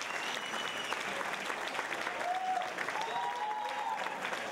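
Audience applauding and cheering, dense steady clapping with a few sustained whoops rising over it.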